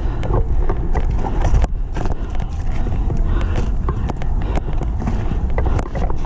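Wind rumbling on the microphone, with scattered sharp clicks and knocks at irregular intervals.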